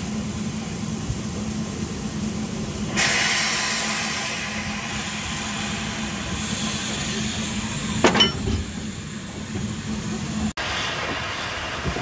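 Ffestiniog Railway steam train running with a steady rumble. About three seconds in a loud hiss starts suddenly and slowly fades, and near eight seconds there is a sharp metallic clink.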